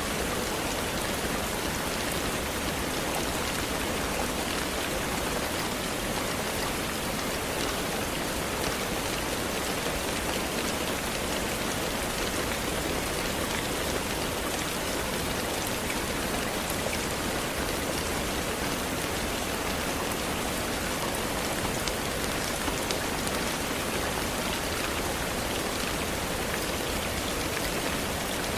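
Steady rain falling: an even hiss with faint scattered ticks of single drops, holding the same level throughout.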